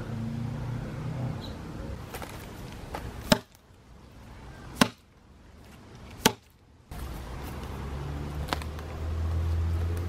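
Three sharp axe strikes into wood, about a second and a half apart, near the middle, with a low rumble before and after.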